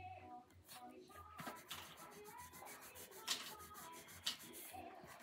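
Faint scratchy rubbing of brown colour being scribbled onto paper to fill in a drawing, with two short, sharper scrapes about three and four seconds in.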